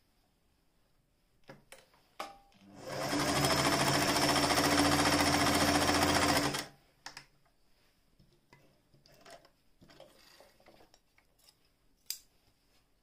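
Singer 416 electric sewing machine stitching: the motor comes up to speed within half a second, runs steadily for about four seconds, then stops abruptly. Light clicks and handling noises before and after the run.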